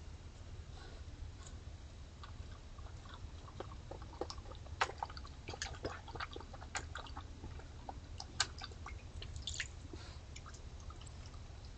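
A raccoon foraging at the edge of a pond: irregular small clicks and ticks, the loudest about five seconds in and again about eight seconds in, over a steady low hum.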